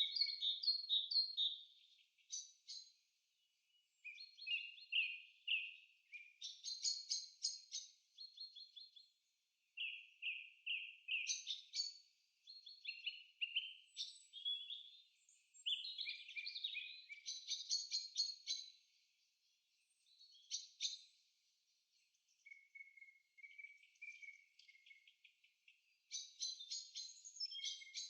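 Songbirds singing in a forest: a string of high, quick trilled and chirped phrases, each a second or two long, separated by short pauses.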